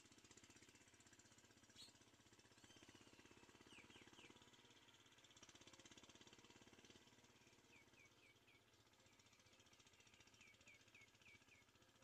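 Near silence with faint bird chirps: short, high, falling notes in quick runs, three together about four seconds in and runs of four to six later, over a faint steady fast pulsing hum.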